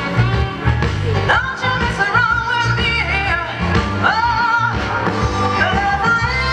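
Live band playing soul music, with a singer holding wavering sung notes over a strong, steady bass line.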